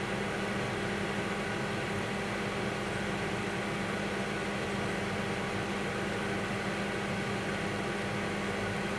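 Steady background hiss with a low, even hum. Nothing starts, stops or changes.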